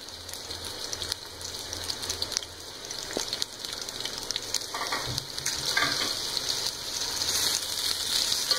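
Sliced onions sizzling in hot oil in a metal pot, the sizzle growing louder toward the end as a wooden spoon stirs them.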